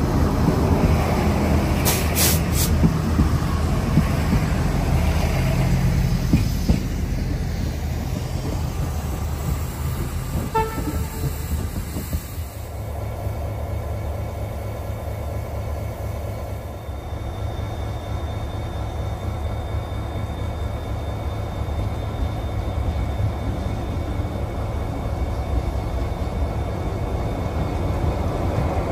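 A diesel railcar train running past along the platform, its engines and wheels loud at first and fading over the first several seconds. Near the middle the sound changes abruptly to the steady, lower rumble of diesel locomotive engines, with a faint high whine, as Irish Rail 201 class locomotive 234 comes up to the platform.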